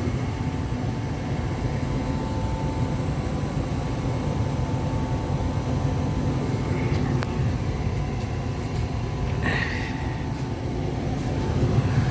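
Lennox 80% gas furnace running steadily with its burners lit: a steady low hum and rush from the inducer motor, burners and blower, with a faint steady whine in the first half and a brief noise about nine and a half seconds in.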